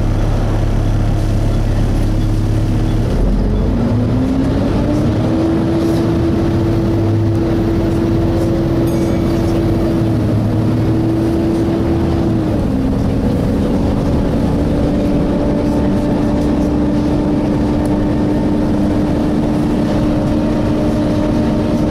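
Volvo B7TL double-decker bus's engine cooling fan giving a steady wailing, hoovering whine over the diesel engine's rumble. About four seconds in the whine rises in pitch as the bus gets under way, and about twelve seconds in it drops slightly and holds. The fan is running flat out whether or not the engine is hot.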